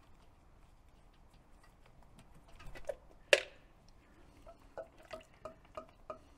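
Warm engine oil draining from an Onan QG 3600 LP generator's oil pan into a plastic measuring cup. A sharp click comes about halfway through as the drain plug comes free, then the falling oil plinks into the cup about three times a second.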